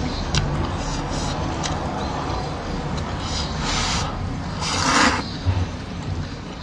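Someone eating noodles, with two loud slurps about four and five seconds in, over low rustling and handling noise.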